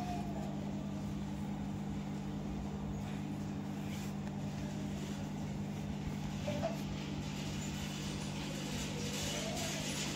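A steady low hum runs throughout, with faint rasping scrapes of a straight razor shaving stubble along the neck and beard line.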